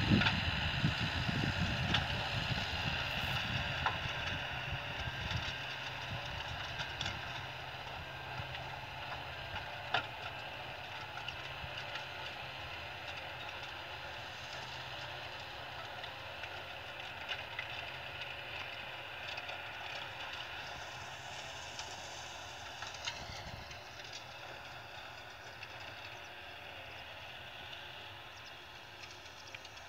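A tractor towing a manure spreader that is running and spreading cattle manure, with a steady whine and occasional knocks. It grows steadily fainter as the rig drives away.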